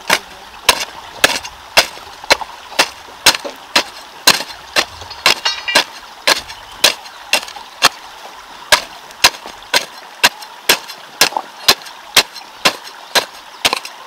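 Steady rhythmic chopping: sharp strikes of a hand tool, about two a second, kept up without a break.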